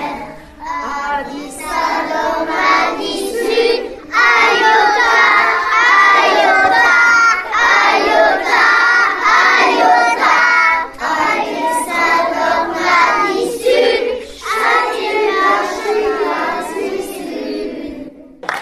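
A group of young children singing together in Breton, a song naming the days of the week, in sung phrases with short breaks between them.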